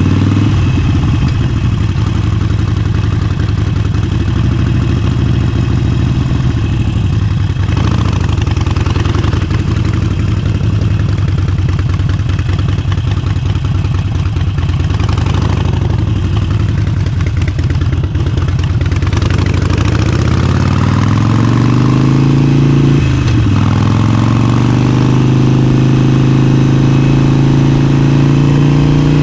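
Harley-Davidson Forty-Eight's 1200 cc air-cooled V-twin running steadily, then revving up about two-thirds of the way in. Its pitch drops suddenly, like a gear change, and then climbs again.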